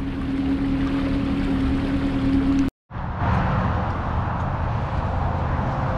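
Honda outboard engine running steadily at cruise, with water and wind noise from the moving boat. The sound cuts off abruptly a little under three seconds in and is replaced by a different steady low rumble and hiss.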